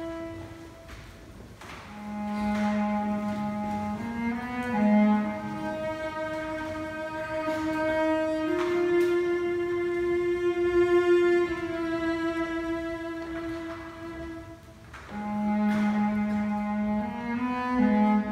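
Solo cello playing a slow melody in long held notes, phrase after phrase, with a few faint soft strokes underneath.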